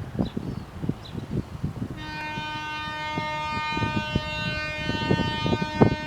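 Z class diesel locomotives passing with their horn sounding one long chord, starting about two seconds in and held for about four seconds. Underneath is the rumble and irregular clatter of the train on the rails, which gets heavier near the end.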